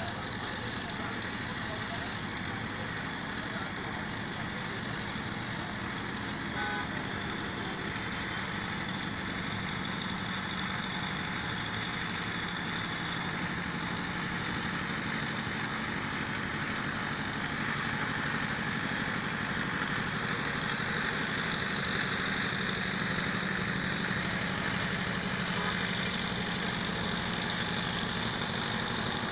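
Steady hum of motor vehicle engines and road traffic, growing slightly louder toward the end.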